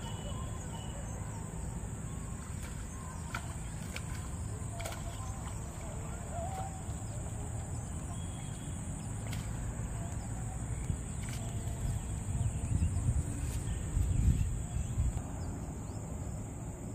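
Outdoor rural ambience: a low rumble of wind on the microphone that gusts louder about three-quarters of the way through, under a steady high-pitched insect drone and a few faint bird chirps.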